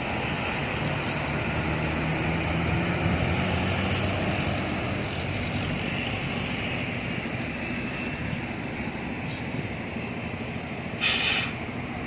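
Coaches and trucks driving past, engines running with tyre noise and an engine hum strongest in the first few seconds. About eleven seconds in, a short sharp hiss of air from a bus's air brakes.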